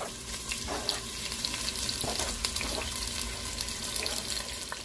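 Raw beef pieces sizzling as they drop into hot oil in a clay pot: a steady frying hiss with scattered crackles and a few sharper pops.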